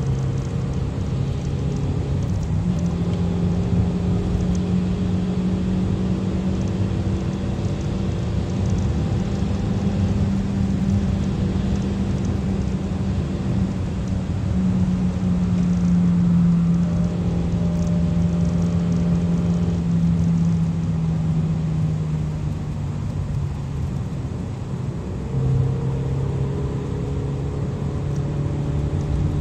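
Kia cee'd GT's 1.6-litre turbocharged four-cylinder engine pulling hard, heard inside the cabin over tyre and road noise. The engine note holds high and steady, sags slowly, drops away for a moment near the end, then picks up again.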